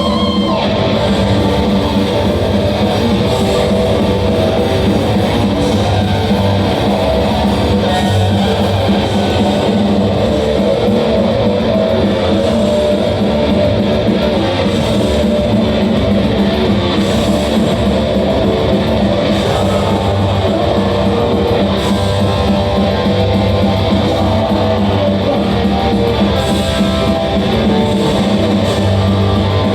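Heavy metal band playing live: loud distorted electric guitars over bass and drums, with cymbal crashes recurring throughout.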